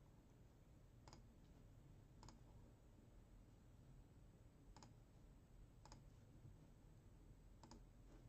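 Near silence: low room hum with five faint, sharp clicks at uneven gaps of one to two and a half seconds.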